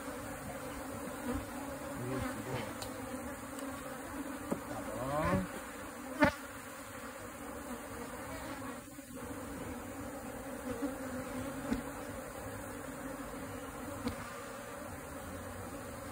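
A mass of honeybees buzzing steadily, the colony stirred up by its combs being cut out and moved. About five seconds in, a rising buzz passes close, and a sharp knock follows shortly after, with a few fainter knocks elsewhere.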